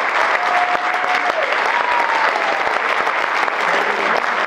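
Audience applauding steadily and loudly, with a faint voice calling out over the clapping in the first couple of seconds.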